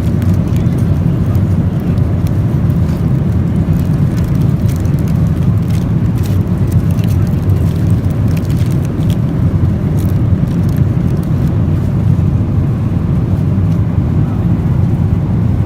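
Cabin noise inside a Boeing 777-300ER: a steady, loud, low rumble of engines and airflow, with a few faint ticks and rattles.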